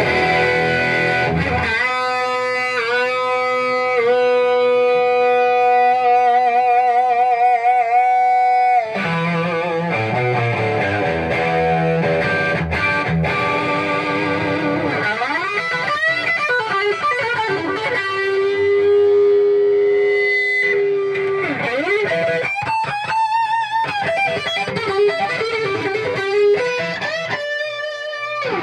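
Overdriven electric guitar through a cranked 1971 Marshall EL34 head and greenback speaker cab: sustained notes with wide vibrato and string bends, and one long held note about two-thirds of the way through. The amp is run at full line voltage with every control turned up, its power supply under full load, to bring out ghost notes.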